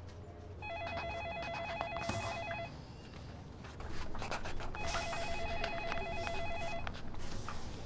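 Electronic telephone ringing with a fast warbling tone: two rings of about two seconds each, a couple of seconds apart. Faint clicks and rustling sound in between.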